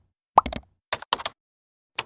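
Cartoon-style pop sound effects: one quick rising 'bloop' a little after the start, then a quick cluster of short clicks and pops around the middle and a single click at the end, with silence between them.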